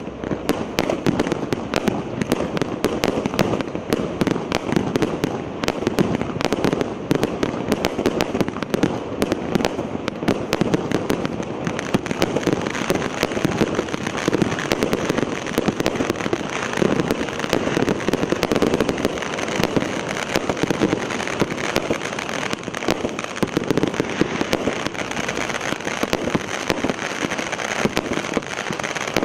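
A 250-shot, 1-inch-calibre fireworks cake firing continuously: a rapid, unbroken stream of shots and bursts, several every second.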